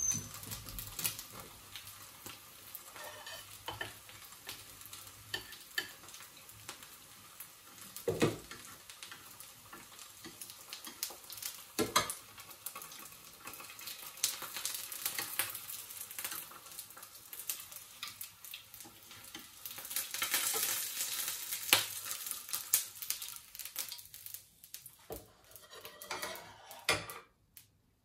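Food frying in oil in a pan, a steady sizzle with a spatula now and then scraping and knocking against the pan. The sizzle swells about two-thirds of the way through, then dies down near the end.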